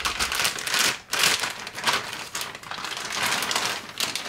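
Clear plastic bag crinkling and rustling in a run of uneven scrunches as it is pulled off a microscope focus arm.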